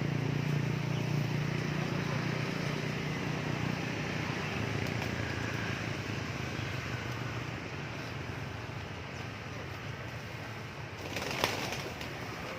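A low engine hum fades away slowly. Near the end comes a short flurry of pigeon wing flaps with one sharp click.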